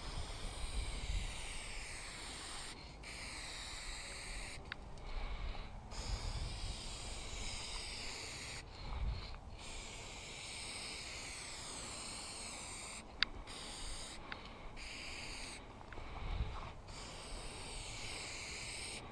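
Aerosol spray-paint can hissing in long sprays, with several short breaks where the nozzle is let go between strokes. The hiss wavers as the can sweeps along the wall, and there is one sharp click a little past the middle.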